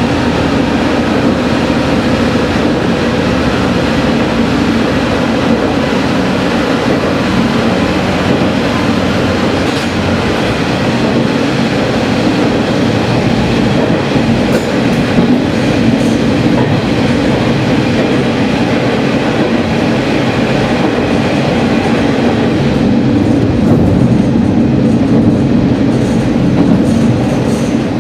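Diesel railcar running at speed through a tunnel, heard from the front cab: a loud, steady rumble of wheels on rails and engine, growing a little louder in the last few seconds.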